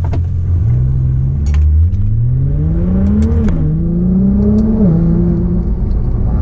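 Nissan GT-R R35's twin-turbo V6, heard from inside the cabin, accelerating through the gears. The engine note climbs, drops sharply at a quick upshift about three and a half seconds in, climbs again to a second upshift near five seconds, then holds steady.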